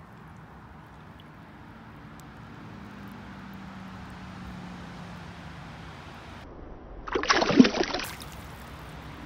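Stream water running around a brown trout held in the current, then a loud burst of splashing about seven seconds in, lasting about a second, as the released trout kicks free of the hand.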